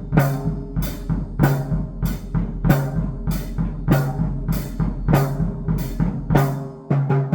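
Electronic drumming: a steady beat of hits about every 0.6 seconds, each hit ringing with a low pitched tone, over a constant low hum.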